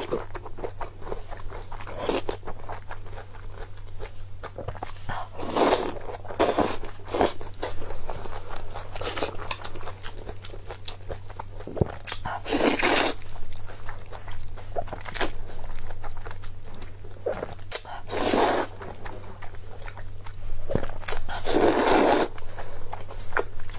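Close-miked eating: chewing with crunchy bites and small mouth clicks, and a louder crunch every few seconds. A steady low electrical hum runs underneath.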